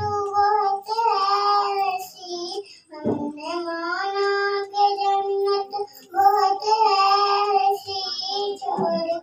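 A young girl singing a naat, a devotional song, solo and unaccompanied, holding long wavering notes with short pauses about three seconds in and again near six seconds.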